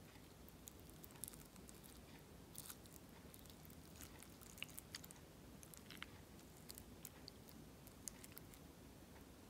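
Near silence: faint room tone with scattered small clicks of a metal spoon working into a fried egg and curry rice.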